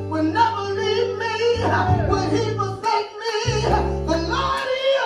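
Live church music: an electronic keyboard playing held low chords that change every second or so, with voices singing and calling out over it.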